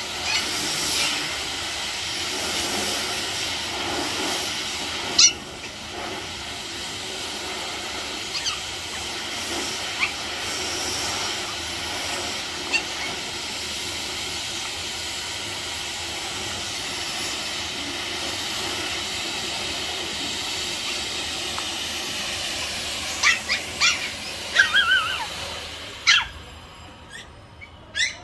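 A steady hiss of background noise, with a few short, sharp yaps from toy Pomeranian puppies near the end. The hiss drops away just after them.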